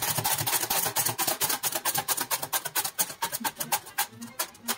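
Onion being slid back and forth across a mandoline slicer's blade, a fast run of slicing strokes, several a second.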